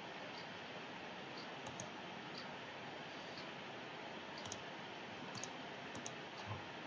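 A handful of faint computer mouse clicks, some in quick pairs, over a steady background hiss.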